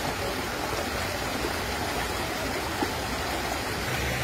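Muddy floodwater from a swollen stream rushing and churning past, a steady wash of water noise.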